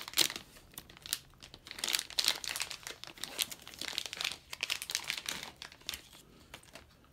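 Thin clear plastic sleeve crinkling in the hands as a chisel is pulled out of it: a run of crackles that dies away about six seconds in.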